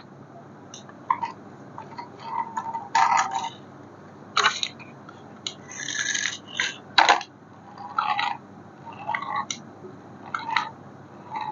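Small hard plastic objects being handled: irregular clicks, knocks and short scrapes and rattles, several a second with brief gaps, over a low steady hum.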